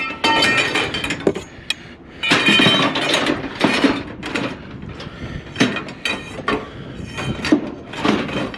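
Irregular metallic clanks and clinks of scrap metal being handled.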